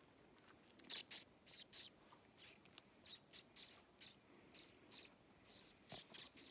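Puppies stirring against a wool blanket: a faint run of short, irregular scratchy rustles, about fifteen in five seconds, the first about a second in the loudest.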